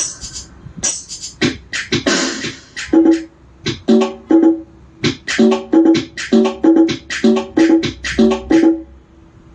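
Roland SPD-20 Pro electronic percussion pad being played. It opens with a few sharp, noisy drum and cymbal hits, then a steady run of short pitched drum tones at about three strokes a second.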